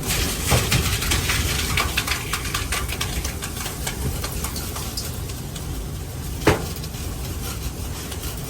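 Steady low wind rumble, with a run of small clicks and crackles over the first few seconds and a single sharp knock about six and a half seconds in.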